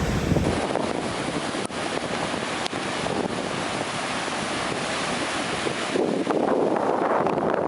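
Typhoon-driven surf breaking and washing ashore, a steady rush of white water with some wind. It swells louder about six seconds in.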